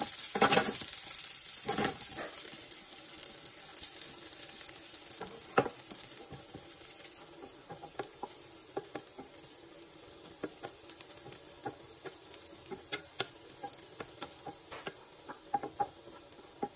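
Sliced garlic frying in oil in a nonstick pan, sizzling loudest in the first couple of seconds and then settling to a lighter sizzle. A wooden spatula stirs the garlic, with scattered sharp ticks and taps against the pan.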